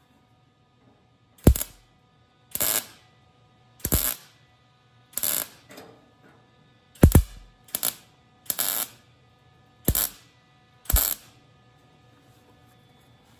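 MIG welder laying a row of short tack welds on a butt joint in a steel replacement quarter panel: nine brief bursts of arc about a second apart, each under half a second, the last about eleven seconds in.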